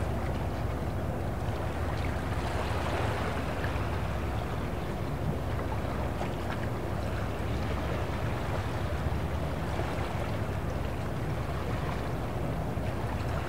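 Sea-port ambience: a steady low rumble of boat engines out on the harbour, with moving water beneath it.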